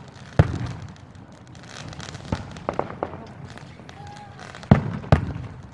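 Aerial firework shells bursting: a sharp boom about half a second in, another near the middle, and two close together near the end, with a few lighter pops in between.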